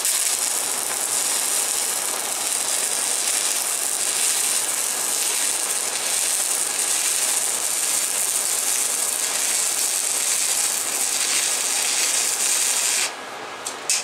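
Stick welding arc crackling and hissing steadily as a bead is laid on steel angle iron, cutting off suddenly about a second before the end when the arc is broken.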